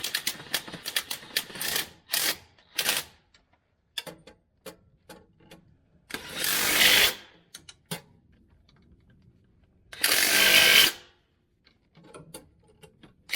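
Power tool run in two short bursts of about a second each while driving in the starter mounting bolts, after a quick run of clicks and knocks from working on the bolts.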